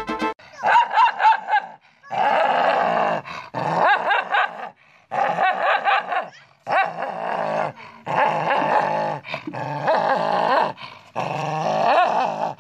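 Dog snarling and growling, with barks, in rough, wavering bouts of one to three seconds separated by short breaks.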